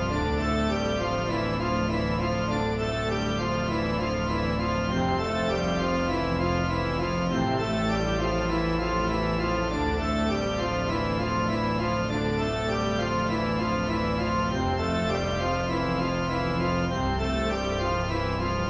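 Instrumental background music: held chords over a bass line that moves to a new note every two to three seconds, at a steady level.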